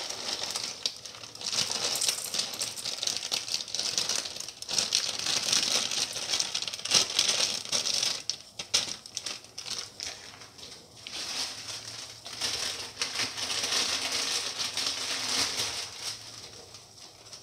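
Water at a boil in a cooking pan around two blocks of instant Maggi noodles: a dense crackling and popping of bursting bubbles, easing off near the end.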